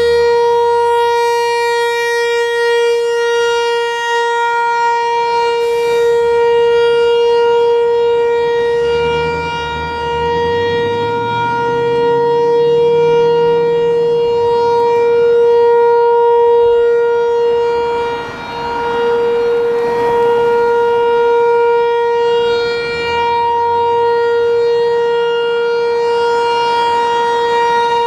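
T-128 outdoor warning siren sounding its monthly test on a steady, unwavering tone. Its loudness dips briefly a few times.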